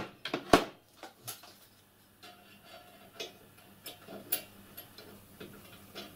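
Metal suspension parts clicking and tapping as they are handled and fitted together: a suspension arm with its coil spring offered up to the frame. Two sharper clicks come in the first second, then scattered faint ticks.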